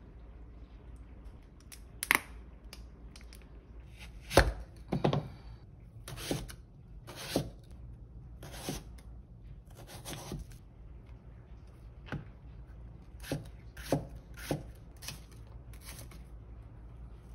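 Large kitchen knife slicing radish and onion on a plastic cutting board: about fifteen separate, unevenly spaced cuts, each a crisp crunch ending in a knock on the board, starting about two seconds in.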